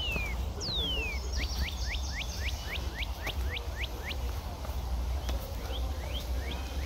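A songbird singing: two long whistles sliding downward, then a quick run of about ten short downward-slurred notes, about four a second, with a few faint chirps near the end. A steady low rumble sits beneath it.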